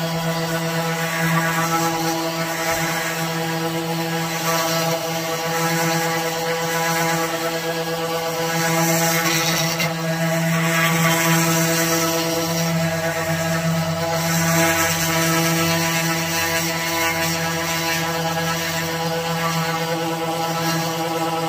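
Ridgid electric orbital sander running steadily on a wooden tabletop: a constant motor hum with the hiss of the abrasive pad over the wood.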